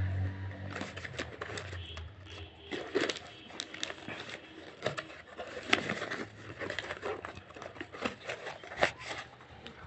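Cardboard box and cherries handled by hand: irregular clicks, taps and rustles of cardboard as the fruit is arranged and the box's card insert is worked. A low hum fades out in the first two seconds.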